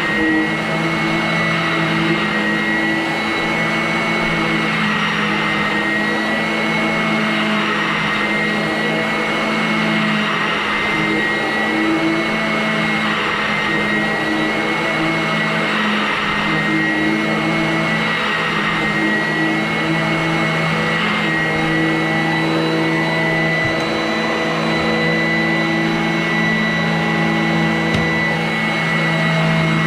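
Vacuum cleaner motor running steadily, with a constant hum and a high whine.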